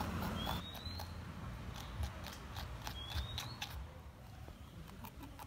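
A porcupine chewing leafy greens, giving irregular crisp crunches and clicks several times a second. A short, faint rising whistle is heard twice in the background, about half a second in and again after three seconds.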